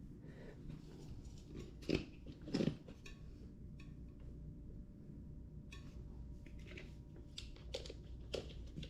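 Faint handling noises from work on a scooter wheel and tyre: a few short clicks and scrapes, with a cluster near the end.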